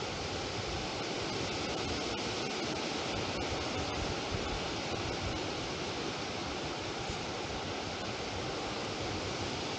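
Steady wind noise blowing over an outdoor microphone, a constant hiss with an uneven, gusty rumble underneath.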